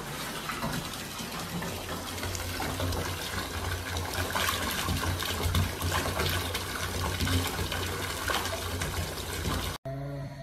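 Water running from a bathtub mixer tap into the tub, a steady gushing stream that cuts off abruptly near the end.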